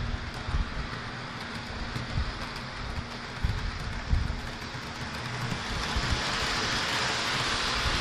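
Bachmann Spectrum HHP-8 model train running on the layout's track, a rushing hiss of wheels and motor that grows louder over the last few seconds, with low uneven rumbles underneath.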